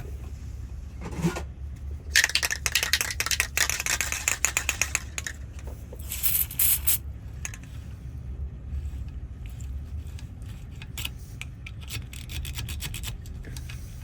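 Key repeatedly worked in and out of a car door lock cylinder and turned, with metal clicking, rattling and scraping of the key against the lock's wafers, heaviest in the first few seconds, and a brief hiss about six seconds in. The lock is newly freed of the corrosion that had kept the key from going all the way in, and it now turns.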